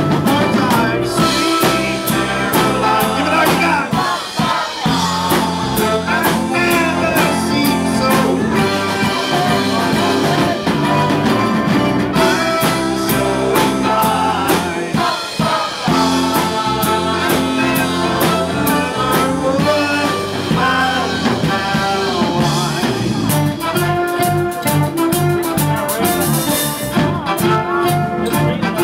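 A small live band playing a tune on electric keyboard, electric guitar, bass guitar, drum kit, saxophone and mandolin.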